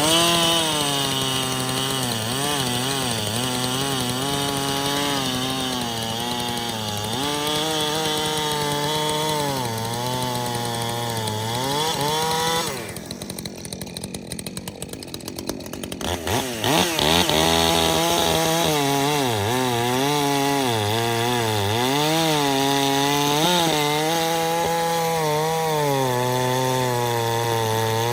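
Two-stroke chainsaw running at full throttle while cutting wood, its engine pitch wavering as the chain loads up in the cut. About halfway through the engine drops back for a few seconds, then revs up again and goes back to cutting.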